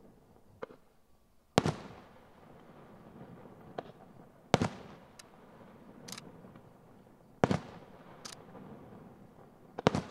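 Aerial firework shells (Maltese festa murtali) bursting in the sky, heard from afar: four loud booms about three seconds apart, each with a brief echoing tail, and a few smaller cracks between them.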